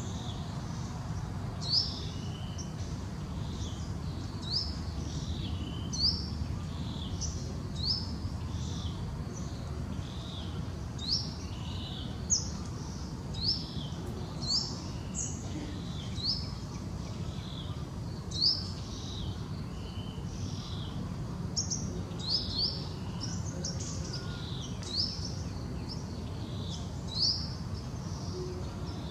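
Small birds chirping: short, high, falling chirps about once a second, over a steady low rumble.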